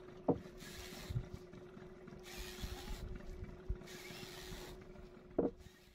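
Small fishing boat's engine running with a steady hum, under rushes of hissing noise that come and go about once a second, with two short knocks, one just after the start and one near the end.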